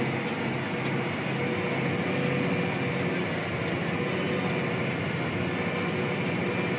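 Tractor engine running steadily under load, heard from inside the cab as an even drone with a low hum.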